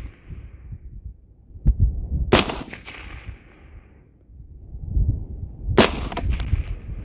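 Two AR-15 rifle shots with 55-grain ball ammunition, about three and a half seconds apart, each trailing off in an echo. Wind buffets the microphone in between.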